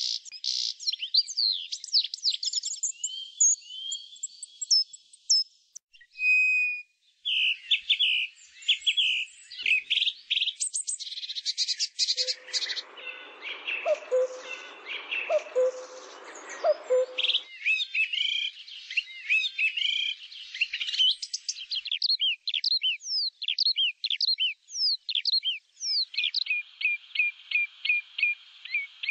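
Songbirds singing: a dense run of quick chirps and whistles, broken by a short gap about six seconds in. Near the middle, a lower, rougher sound joins in for about five seconds.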